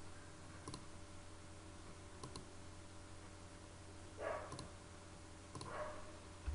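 Computer mouse clicking: a few faint, scattered single clicks, over a low steady hum.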